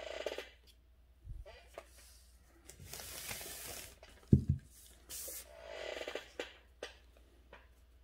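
Soft brushing and rustling of a calligraphy brush and paper on a desk, in three spells, with a few small ticks and taps. A single dull thump about four seconds in is the loudest sound.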